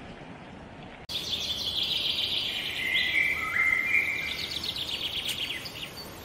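Birdsong of rapid trills and whistled chirps that starts abruptly about a second in, over a steady outdoor hiss. It fades out near the end.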